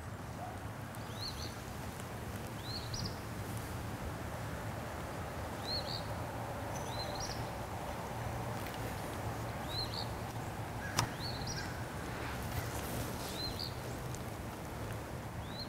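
A bird repeating a short, high, rising chirp about every second and a half, over a steady low hum of distant traffic. A single sharp click sounds a little past the middle.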